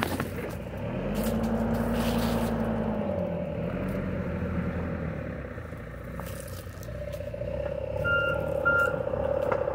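A vehicle's engine running, revving up about a second in and easing back down around three seconds, then a reversing alarm starting to beep in short evenly spaced tones near the end.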